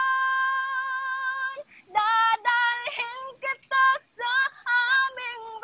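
A young woman singing a Filipino love ballad unaccompanied: one long held note, then a string of short sung phrases broken by brief pauses.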